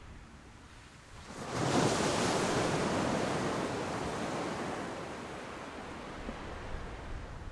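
Sea wave breaking on the shore: after a quiet moment, a wave crashes about a second and a half in and its wash slowly fades away.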